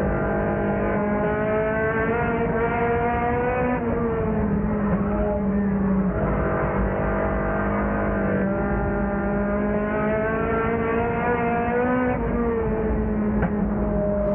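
Race car engine heard from inside the car, under hard load, its pitch climbing for a few seconds and then falling away as the driver lifts, twice over, as on the straights and turns of a short oval.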